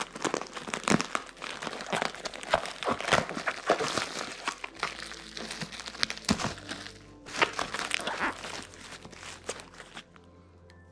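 Plastic bubble-lined mailer bag crinkling and tearing as it is ripped open by hand, a dense run of crackles that dies away near the end. Soft background music plays underneath.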